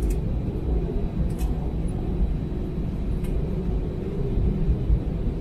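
Cabin noise of an Airbus A320 taxiing: a steady low rumble from its CFM56 engines at taxi power and the wheels rolling on the pavement, heard from inside the cabin, with a few faint ticks.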